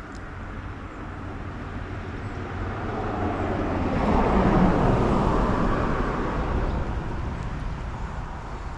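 A vehicle passing by: a rushing noise that swells to a peak about halfway through and then fades away.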